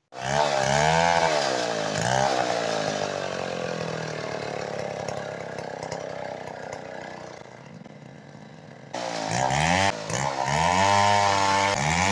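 Stihl two-stroke chainsaw revving up and down in quick blips, then running more steadily at a lower pitch that slowly quietens for several seconds. About nine seconds in it turns suddenly louder and revs up and down hard again.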